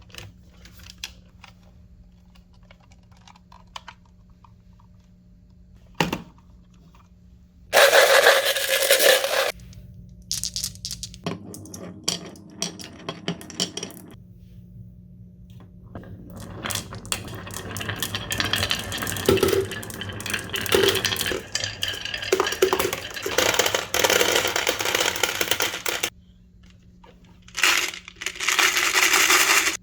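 Marbles clicking and rattling as they roll down a marble run. There are scattered single clicks, a loud clattering burst about eight seconds in, a long stretch of dense rattling in the second half, and another burst near the end, over a faint steady hum.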